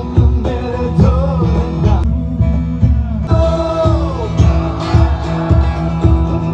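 Live band music: an electric guitar strummed, a male voice singing, and a steady beat played on a cajón.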